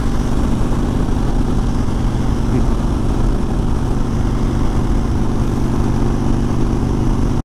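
Suzuki V-Strom 1000 V-twin motorcycle engine running steadily while riding at highway speed, with wind and road noise rushing over the microphone.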